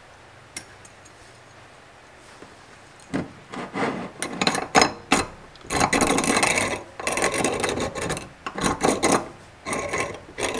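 Hand-cranked piston ring filer, its sanding disc grinding the end gap of the second piston ring open because the gap is too tight. The uneven rasping strokes start about three seconds in and grow louder about halfway through.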